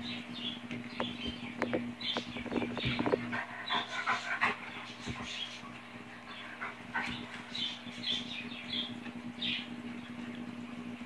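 A young Cane Corso–Labrador puppy and a chocolate Labrador playing: many short, high whines and yips, busiest in the first half, with sharp clicks between one and three seconds in, like claws on a hardwood floor.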